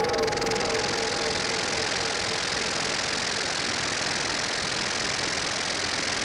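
A synthesizer noise effect from a Novation X-Station: a steady, dense, rough noise texture with an engine-like grain, while fading pitched glides from the preceding siren-like sound die away in the first second.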